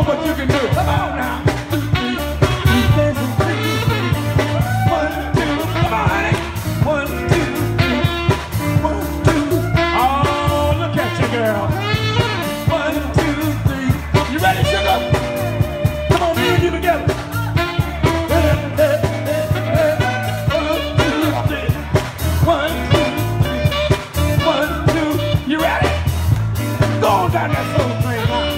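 Live soul band playing an upbeat number with a steady bass and drum beat, a man singing lead over it.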